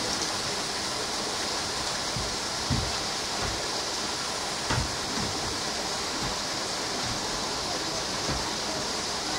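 Steady rushing noise like running water, with a couple of faint low thumps about three and five seconds in.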